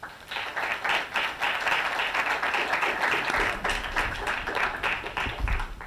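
Audience applauding: many hands clapping, starting right away, holding steady, then thinning out near the end.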